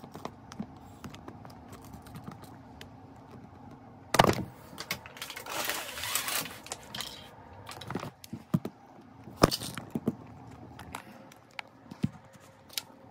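Handling noise: scattered clicks and knocks as things are handled close to the microphone. There is a loud bump about four seconds in and a stretch of rustling a little after.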